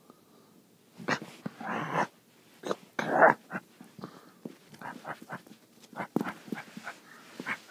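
Pet prairie dog play-fighting a person's hand, making a run of short, sharp, noisy calls mixed with scuffling, the two longest and loudest about one and three seconds in, then many quick ones.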